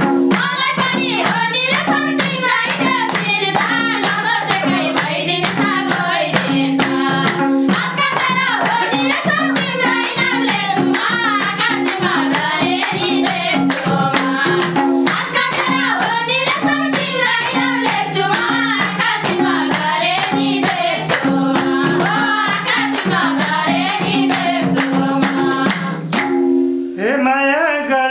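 Live Nepali dohori folk music: a madal drum beating and hands clapping along under held accompaniment tones, with voices singing a melody. About two seconds before the end the accompaniment and beats stop, leaving a single voice.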